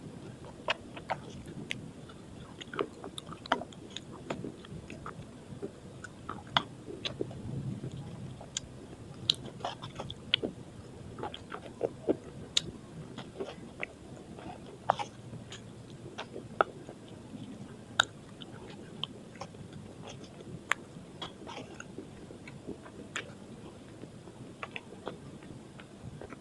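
Close-up biting and chewing of slate pencils coated in dried multani mitti (Fuller's earth) paste: a run of sharp, brittle crunches, a few each second, with louder snaps every second or two.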